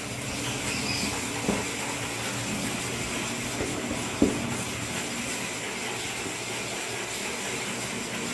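Steady background hiss, with a few soft knocks from a marker tapping and writing on a whiteboard, the clearest about one and a half and four seconds in.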